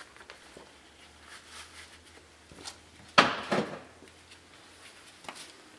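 Tools handled on a steel workbench: one sharp metal clunk about three seconds in, followed by two lighter knocks, over faint handling clicks.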